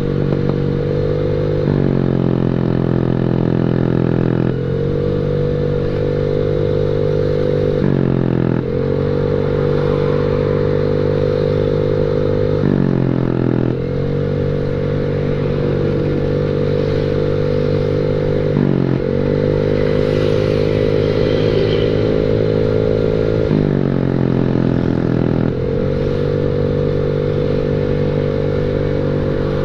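Honda Beat scooter's single-cylinder engine running through a WRC 'mber' bucket-style racing exhaust while riding. The exhaust note holds steady at cruising throttle, then drops each time the throttle is rolled off and climbs again, about six times.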